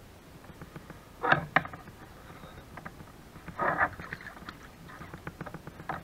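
Knocks, a rustling clatter and light clicks of fishing gear being handled on a kayak as the landing net is taken up: two sharp knocks about a second in, a brief clatter in the middle, then scattered irregular clicking.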